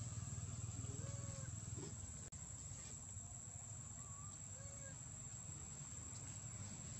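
Baby macaque giving short, thin, arched squeaking calls about once a second, over a steady high-pitched drone and a low rumble.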